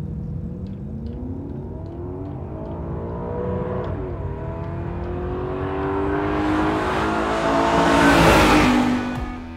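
Car engine accelerating, its pitch climbing steadily with one brief drop about four seconds in. It grows loudest about eight seconds in, then fades away.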